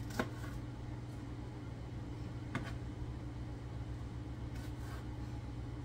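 Kitchen knife slicing bell pepper on a cutting board: a sharp tap just after the start and another about two and a half seconds in, with a few fainter taps near the end. Under it runs a steady low mechanical hum.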